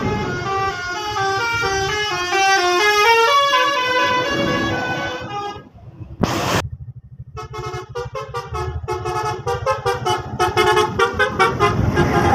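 Bus 'telolet' multi-tone air horn playing a stepping melody of several notes for about five seconds. After a short break and one sharp burst, it plays a fast run of short clipped notes. A low engine rumble runs underneath.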